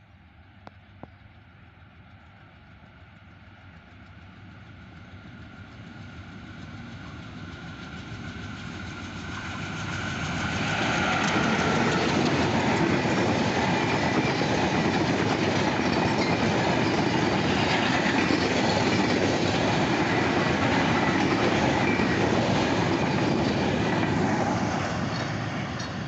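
Bangladesh Railway intercity express (Panchagarh Express) approaching and running through at speed without stopping. The rumble and wheel clatter build over about ten seconds and stay loud while the coaches rush past. They begin to fade near the end as the train draws away.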